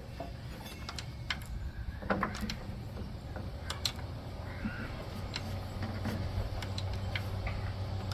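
Scattered light clicks and knocks of a rubber drive belt and metal parts being handled as the belt is worked around a lawn tractor's pulleys and belt guides, over a steady low hum.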